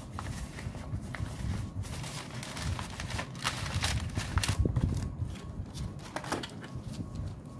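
Paper cash envelopes being handled and shuffled on a desk: an irregular run of short, crisp paper rustles and light taps.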